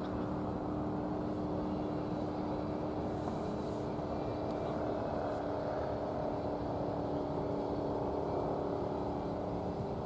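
A steady machine drone with several held tones over a constant outdoor rumble, not changing in level.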